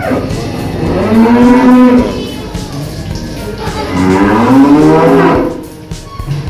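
Black-and-white dairy cows mooing: two long moos, the first about a second in and the second about halfway through, each rising then falling in pitch.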